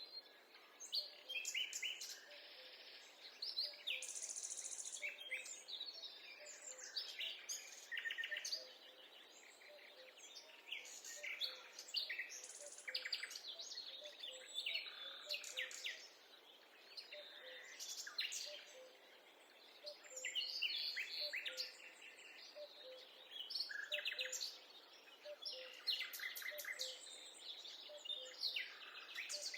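Several songbirds chirping and singing in woodland, many short calls and trills overlapping one another.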